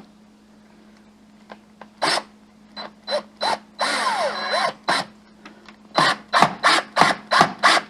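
Hand and power-tool work on a folding door's metal fittings: scattered knocks, a short whirring burst about four seconds in, then a quick run of scraping strokes about three a second.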